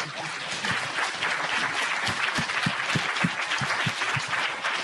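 Audience applauding, with a few voices mixed in.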